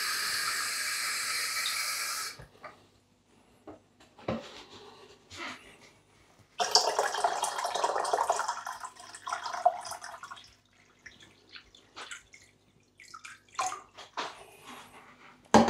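Kitchen tap running into a plastic measuring jug, shut off about two seconds in, then a few light knocks. After that comes about four seconds of water poured from the jug into a small acrylic pico aquarium, splashing as it lands.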